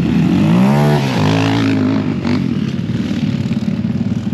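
Off-road vehicle engine revving: the pitch climbs quickly about half a second in, holds for about a second, then drops back to a rough, choppy running sound.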